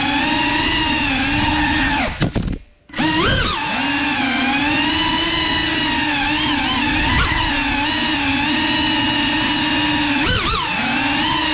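GEPRC CineLog35 cinewhoop drone's motors and propellers whining in flight, heard from the onboard camera, the pitch wavering with throttle. About two seconds in the motors stutter and cut out for under a second, then spin back up with a rising whine; near the end the pitch dips briefly and climbs again.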